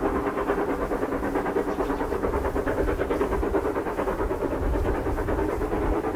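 Two steam locomotives working hard up a gradient, their exhaust beats blending into a rapid, steady chuffing.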